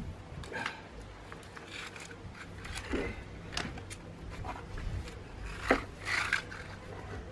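Electrical tape being pulled from the roll and wrapped around a phone: scattered rubbing, scraping and handling clicks, with a sharp knock and a longer rasp a little past the middle.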